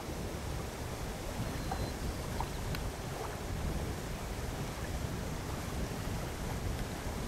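Steady wind rumble on the microphone over choppy lake water lapping and splashing.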